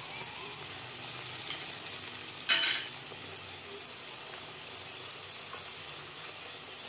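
Watery ground-mustard paste sizzling and bubbling in hot oil in a metal kadhai, a steady hiss. About two and a half seconds in comes a short, louder clatter of the metal spatula against the pan.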